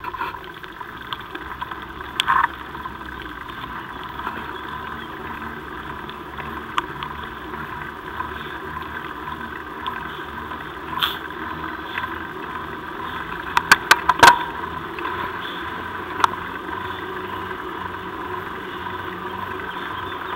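Steady muffled drone of a mountain bike rolling on asphalt, heard through a bike-mounted camera, broken by a few sharp clicks and rattles, with a quick cluster of them a little after halfway.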